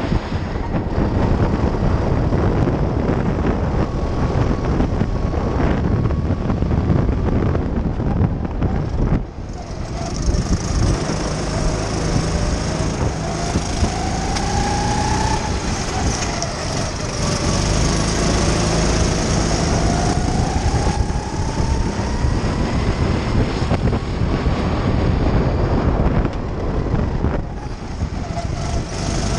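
Go-kart engine under racing load, heard from the driver's seat, with a short drop in level about nine seconds in and its pitch climbing twice in the middle as it accelerates.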